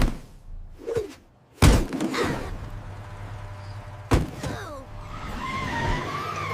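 Animated-cartoon impact sound effects: three hard thuds, the loudest about one and a half seconds in, followed by a wavering tone near the end.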